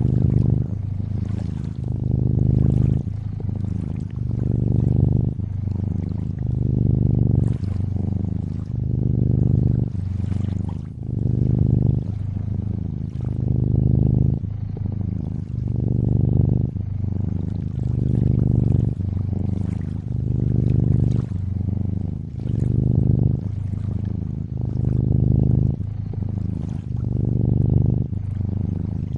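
Cat purring steadily, a low rumble that swells and eases about once every two seconds with each breath in and out. Gentle lakeside water trickles faintly behind it.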